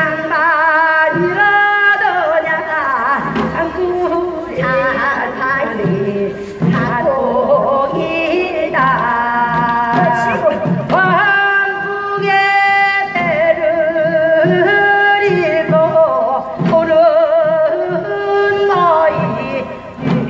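Gyeonggi minyo (Korean folk song) singing, long held notes with a wide, wavering vibrato, over traditional accompaniment with a steady low beat.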